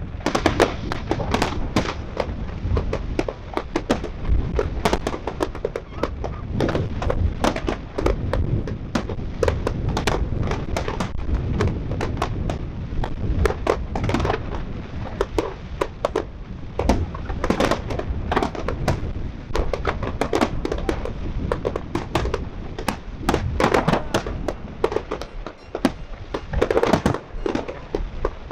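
Fireworks display: a dense, continuous barrage of aerial shell bangs and crackling, several reports a second over a low rumble, thinning briefly near the end.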